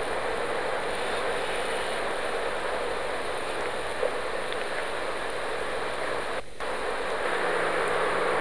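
Steady rushing background noise with a faint constant high whine, broken by a brief dropout about six and a half seconds in.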